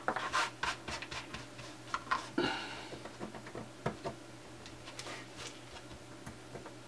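Small hand-handling noises on a work mat: fingers rubbing and scraping, with scattered light clicks as a circuit board and small screws are set down.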